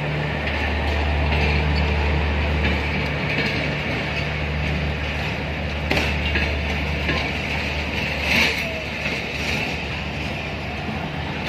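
Pakistan Railways passenger coaches rolling slowly past on an arriving train: a steady rumble and clatter of wheels on the rails, with a few louder knocks. A low hum from the passing power van fades out about three seconds in.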